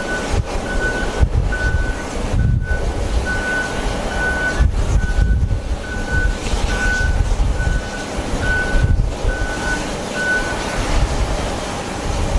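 A vehicle's reversing alarm beeping evenly, about two beeps a second, stopping near the end. Heavy wind buffets the microphone throughout.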